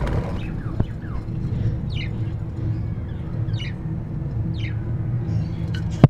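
Budgerigars giving a few short, sharply falling chirps over a steady low hum.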